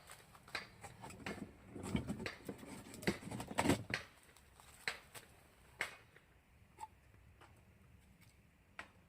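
Irregular light clicks, taps and knocks of objects being handled, busiest and loudest between about two and four seconds in with a low rumble under them, then thinning to a few single taps.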